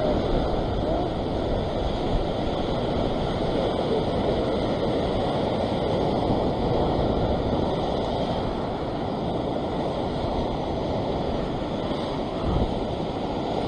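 Heavy sea surf breaking and churning against rocks below, a steady rushing wash of water, with wind buffeting the microphone.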